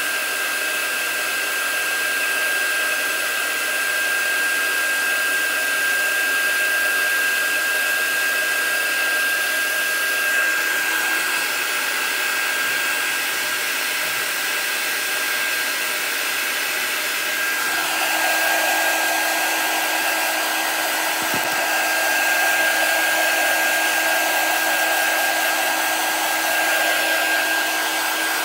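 Handheld craft heat gun blowing hot air steadily to dry wet chalk paste, a rush of air with a steady high whine from the motor. About two-thirds of the way through, a lower hum joins in.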